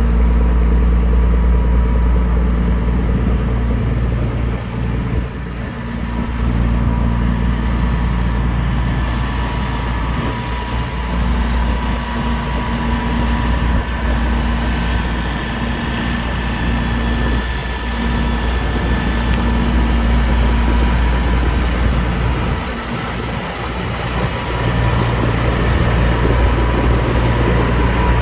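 A motor running steadily with a low rumble and a faint steady hum, easing slightly twice, about five seconds in and again a little past twenty seconds.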